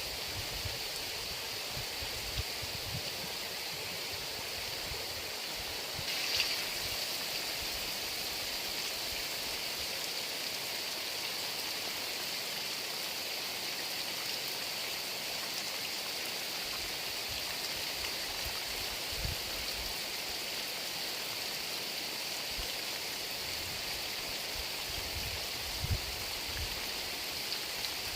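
Heavy rain falling steadily, an even hiss, with a few brief low thuds, the loudest near the end.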